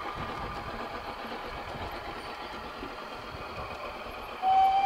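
G-scale garden-railway model train running on its track, a steady mechanical rumble with a faint tone that fades as the coaches pull away into the tunnel. Near the end a loud, steady horn tone starts suddenly.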